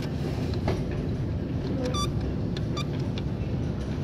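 Steady low rumble of metro-station machinery and trains, with scattered light clicks and one short high beep about two seconds in while the elevator call button is pressed.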